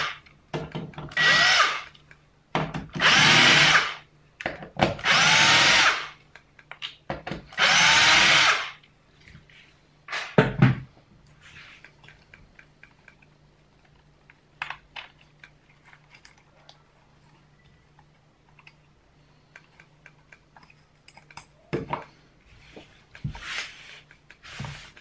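Cordless drill-driver backing out screws in short trigger bursts, four runs of about a second each in the first nine seconds, the motor pitch rising and falling within each run. A single knock follows about ten seconds in, then faint handling clicks and a few more knocks near the end.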